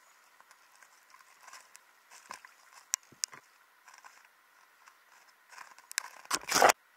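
Sound picked up underwater in a trout pool: scattered faint clicks and taps, then a loud rushing burst about six seconds in that cuts off abruptly.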